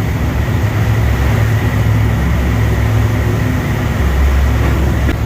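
Steady low engine drone of a vehicle, with a faint high whine over it.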